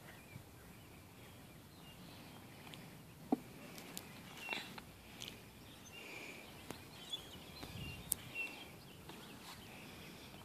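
Quiet outdoor ambience with birds chirping faintly in the background and a few sharp, short clicks scattered through.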